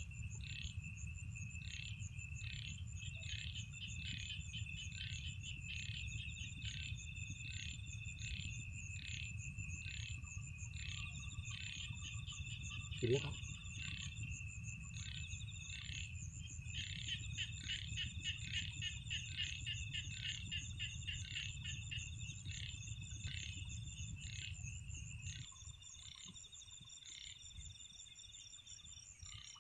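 Night chorus of insects and frogs in a rice paddy: a steady high insect trill under evenly repeated chirps, about one and a half a second. A single short call about halfway through, and a low rumble that drops away a few seconds before the end.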